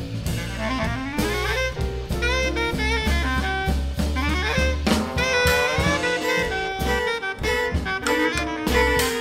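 Small jazz band playing: a reed instrument takes the lead line, with quick upward runs about half a second in and again around the middle, over drum kit and plucked double bass.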